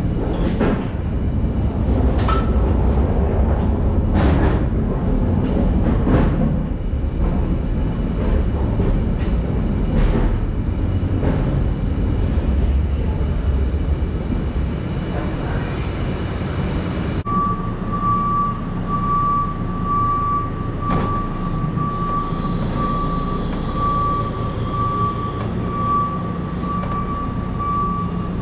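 Loud low rumble with occasional sharp clanks, as a load rolls along a concrete floor. After a sudden cut, a reversing alarm beeps steadily over a low engine rumble.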